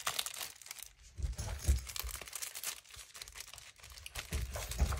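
Clear plastic packaging bag crinkling and rustling as a phone case is slid into it and the bag is handled, with a few soft low knocks from the handling.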